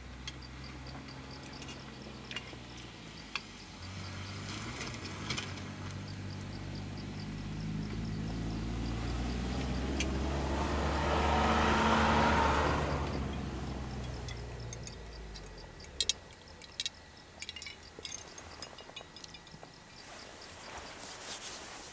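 A motor vehicle passing: an engine hum that grows louder over several seconds, peaks about halfway through, then fades away. A few light clicks follow near the end, in keeping with a spoon against a metal mug on the grill.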